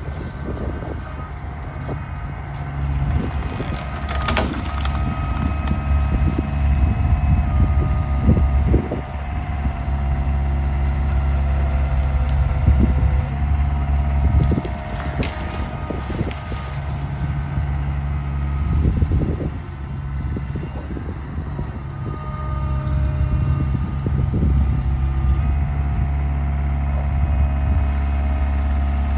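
John Deere 24A skid steer loader's engine running under working load, its level rising and falling, with irregular knocks and cracks as the grapple tears out brush and vines.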